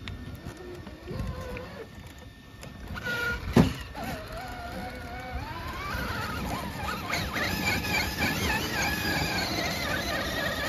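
Electric drive motor and gearing of an Axial SCX6 radio-controlled rock crawler whining as it climbs a rock face, the pitch rising and falling with the throttle. A single sharp knock about three and a half seconds in.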